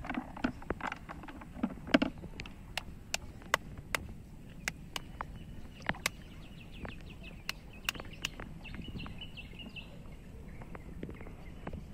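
Water sloshing in a plastic bucket dipped into shallow field water during the first couple of seconds, then scattered sharp clicks and ticks at an irregular pace.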